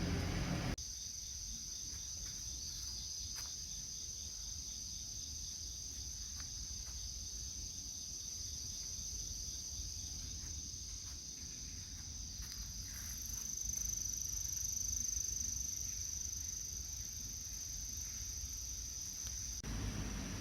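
Insects singing in a steady, unbroken high-pitched drone, over a low rumble.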